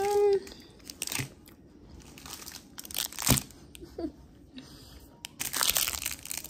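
Plastic wrapping on a marshmallow package crinkling in several separate bursts as it is handled, loudest and longest near the end. A brief hummed "mmm" comes right at the start.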